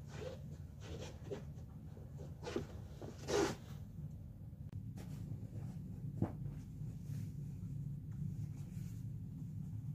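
Bed linen and pillows being handled while a bed is made: a run of short rustles and scuffs, the loudest about three and a half seconds in, and a sharp click a little after six seconds, over a steady low hum.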